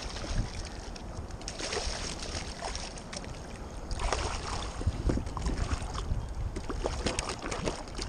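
Water splashing and sloshing beside a kayak as a hooked striped bass thrashes at the surface while it is being landed, with a scatter of short splashes and light knocks, thickest in the second half, and low rumble of wind on the microphone.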